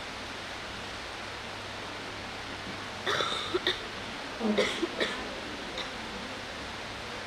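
Steady background hiss, with two brief bursts of a person's voice about three and four and a half seconds in.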